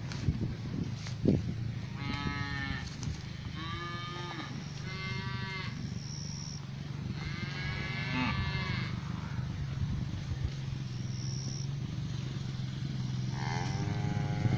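Cattle mooing: three short moos in quick succession about two seconds in, a longer moo around seven to nine seconds, and another starting near the end, over a steady low hum.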